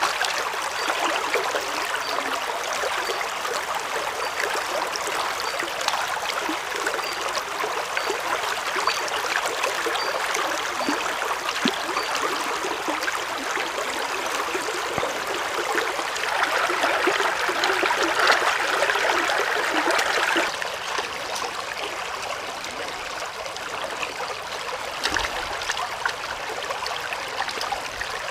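Shallow stream running over rocks, a steady rush of water, with hands sloshing and splashing as a raw chicken is rinsed in it. The water grows louder for a few seconds past the middle, then drops back.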